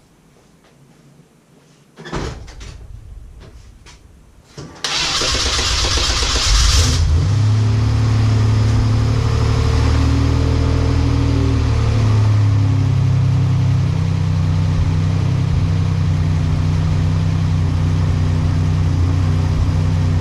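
1987 Buick Grand National's turbocharged 3.8 L V6 being started for the first time with a newly fitted 6766 turbo: after a short burst of noise about two seconds in, it cranks and catches about five seconds in with a loud rush for two seconds, then settles into a steady idle.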